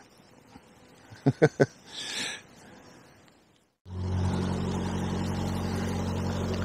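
A passing river boat's engine running steadily, a low even drone that comes in abruptly about four seconds in after a moment of silence. Before it, a few faint sharp clicks and a short rustle.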